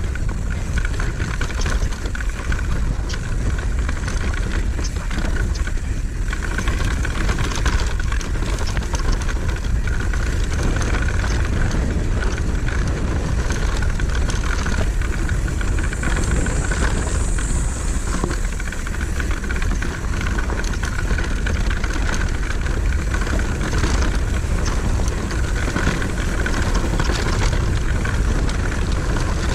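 Mountain bike riding fast down a dirt trail: steady wind rumble on the camera microphone, with tyres on dirt and the bike rattling and knocking over rough ground.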